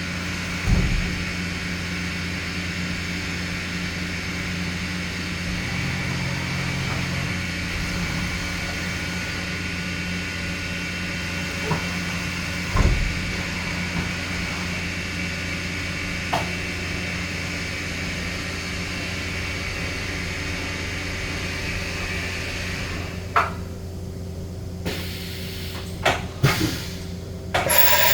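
Mighty Viper 1332 AG CNC vertical machining center running with a steady hum and whine, with an occasional knock. About 23 seconds in the higher whine drops away, followed by a few sharp clicks and a loud rushing noise near the end.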